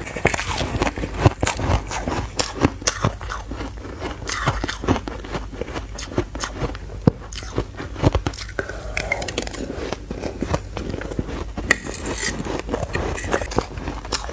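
Crisp, rapid crunching of purple refrozen crushed ice being bitten and chewed close to a lapel microphone, with a metal spoon scraping the ice in a stainless steel bowl.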